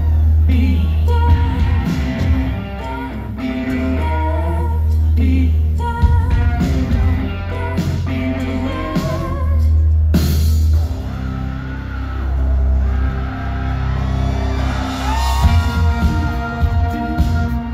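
Live rock band playing through a large outdoor festival PA, with heavy bass, guitar and a singer's voice. A loud hit a little past halfway.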